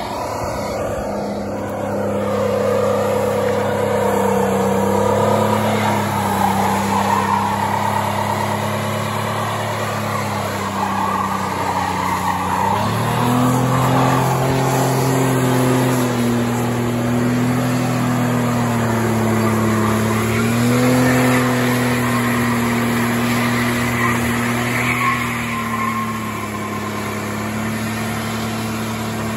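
Ford Ranger pickup doing a burnout: the engine is held at high, steady revs near redline while the rear tyres spin on the pavement. The pitch steps up about halfway through, then wavers slightly.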